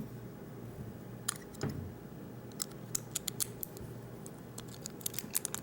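Steel half-rake pick scraping and clicking over the pins inside a Master Lock No. 5 padlock as it is raked. The clicks come irregularly, sparse at first and quick and dense from about halfway in.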